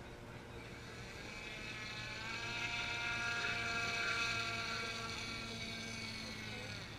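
Radio-controlled model boat's motor whining at a steady pitch as the boat passes, growing louder to a peak about four seconds in and then fading away.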